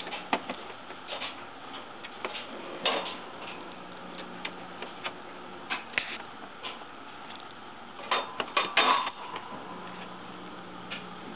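Scattered light clicks and taps from a wire pet crate as the dog and cat inside it move about, with a quick run of louder rattles about eight to nine seconds in.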